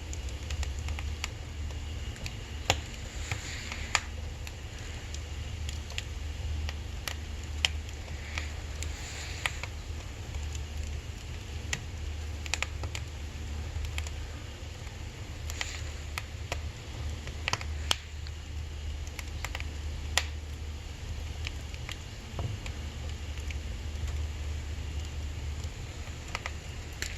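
Firewood burning in a wood stove, crackling with irregular sharp pops, a few louder than the rest, over a low steady rumble.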